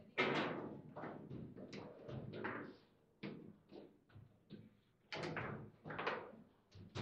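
Foosball table in play: a quick, irregular series of sharp knocks and clacks as the ball is struck by the rod figures and bounces around the table, loudest just after the start and again about five seconds in.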